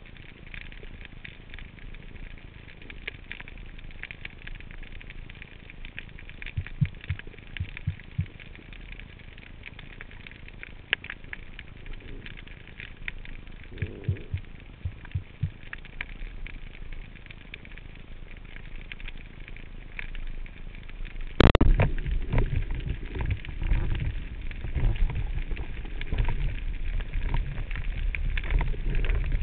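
Underwater ambience over a rocky seabed: a steady faint crackle of small clicks with a few low thuds. About two-thirds of the way through, a sudden sharp knock, then loud rushing water noise against the camera housing as the diver moves.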